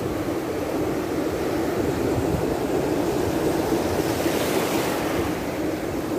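Surf washing onto the beach with wind buffeting the microphone, a steady rushing noise; a brief swell of hiss rises about four seconds in.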